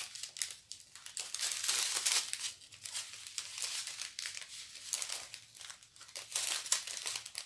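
A strip of small clear plastic bags holding diamond painting drills crinkling as it is handled and folded, in irregular crackles.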